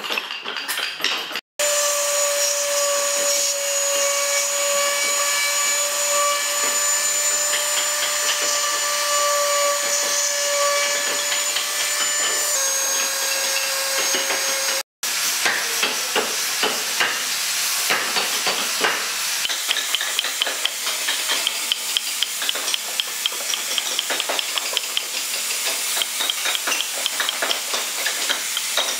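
A small high-speed rotary carving tool with a burr grinds the wood with a steady high whine, its pitch dipping slightly just before the whine breaks off abruptly about halfway through. After that, a hand carving gouge scrapes and clicks rapidly against the wood in short strokes.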